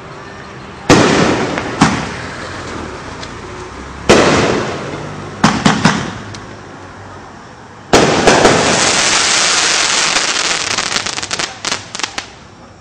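Fireworks going off: loud bangs about one, two, four and five and a half seconds in, each trailing away, then from about eight seconds a long loud hissing stretch that breaks up into a quick run of crackling pops near the end.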